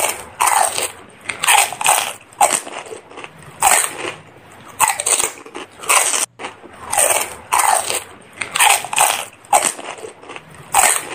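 Crunching of crisp fuchka (pani puri) shells being bitten and chewed, in repeated sharp crunches about once a second.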